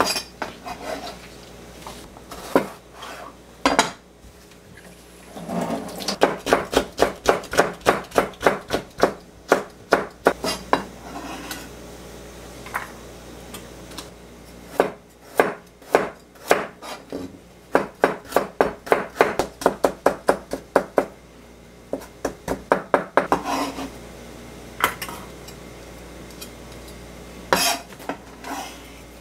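Square-bladed kitchen knife slicing vegetables into thin strips on a plastic cutting board: runs of quick, even knocks at about three a second, with pauses between the runs.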